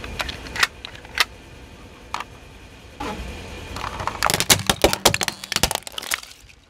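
Car tyre rolling onto a plastic brush and crushing it. A few separate clicks come first. From about three seconds in a crunching noise builds into a dense run of sharp plastic cracks, which fades near the end.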